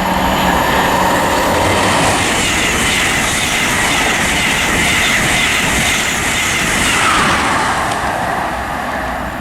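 Express train, hauled by a Class 90 electric locomotive at the rear, passing straight through the station at speed. There is a steady rush of wheel and rail noise with a clickety-clack over the rail joints, easing off near the end.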